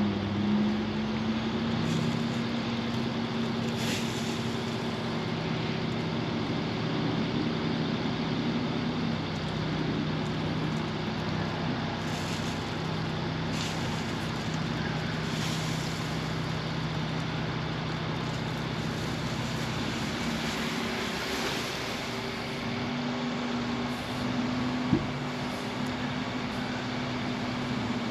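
Diesel engine of compact earthmoving equipment running steadily under work, its pitch shifting twice, with one sharp knock near the end.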